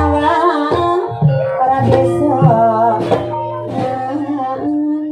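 Javanese gamelan music for an ebeg dance: a singer draws out a wavering melodic line over sustained metallophone notes, punctuated by sharp percussion strokes.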